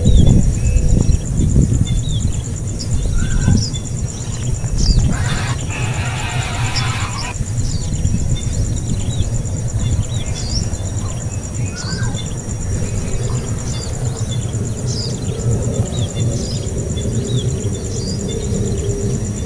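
Nestling birds calling with many short, high chirps scattered throughout, the begging calls of hungry chicks, over a steady low rumble. A steady, rapidly pulsing high whine runs beneath, and a burst of hiss comes about five to seven seconds in.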